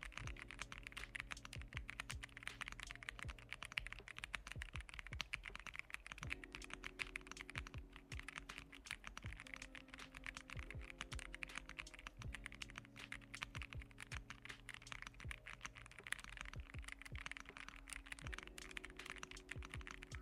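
Royal Kludge R65 mechanical keyboard being typed on steadily in a typing test: a dense, continuous stream of key clicks and clacks.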